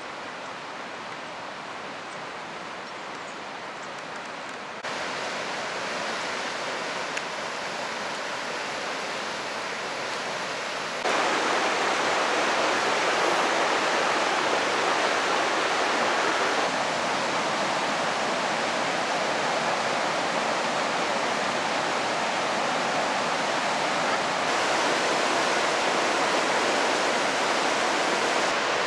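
The Rhine Falls, a large waterfall: a steady rush of falling water that gets abruptly louder about 5 seconds in and again about 11 seconds in.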